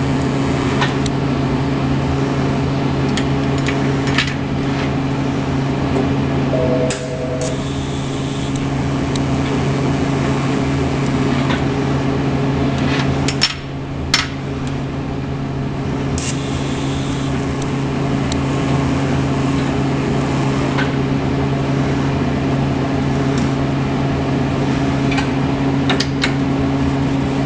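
A steady electrical machine hum, with small steel parts clinking now and then on a steel welding table, two sharp clinks close together about halfway through.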